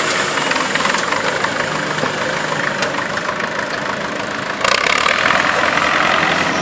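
Old tractor engine running at low revs as the tractor drives off after a pull, with a sudden step up to a louder, rougher engine sound about two-thirds of the way through.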